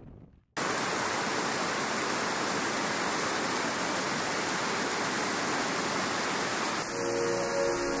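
Steady, even rushing noise that starts suddenly about half a second in. Soft music with long held notes comes in about a second before the end.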